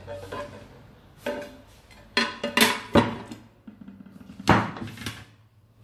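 A ceramic serving plate and a glass loaf dish knocking and clattering against a metal baking tray as a baked caramel flan is turned out. There are several sharp knocks, the loudest bunched about two to three seconds in and another about four and a half seconds in.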